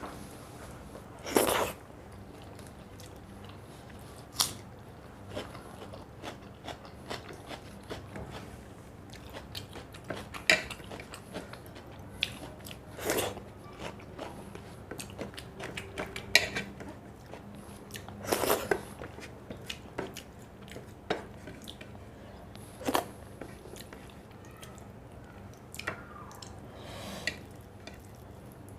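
A person chewing and biting food, with scattered smacks and crunches and a few louder bites.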